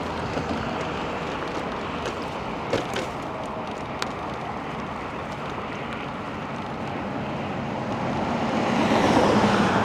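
Steady wind and tyre noise from riding a bicycle, growing louder near the end, with a couple of faint clicks partway through.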